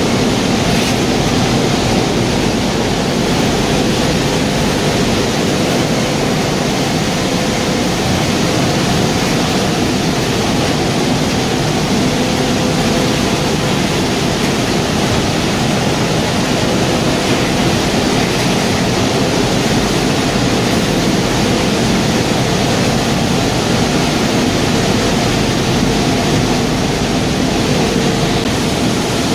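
Heavy waste-tire recycling machinery running steadily: a loud, even rushing noise with a faint underlying hum and no distinct impacts.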